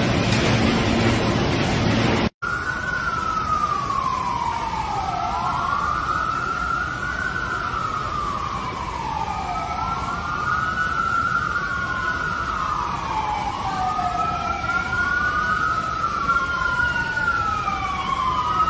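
A wailing emergency-vehicle siren slowly sweeps down and up in pitch, a few seconds to each cycle. A second siren, out of step with the first, joins in the later part. Both sound over a steady hiss of rain. For the first two seconds, before a brief cut, water rushes and sprays up out of a floor drain.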